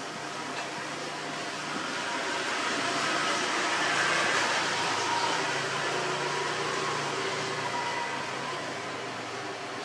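Steady machine-like hum and rush that swells to its loudest about four seconds in and then fades.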